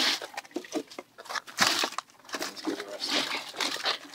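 Dungeness crabs scraping and clicking against a wire-mesh crab trap as they are pulled out by gloved hands, with irregular rustling and clattering of shells, legs and netting.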